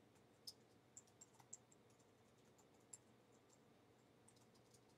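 Faint keystrokes on a computer keyboard: a few scattered taps, bunched about a second in, as a short phrase is typed into a word processor.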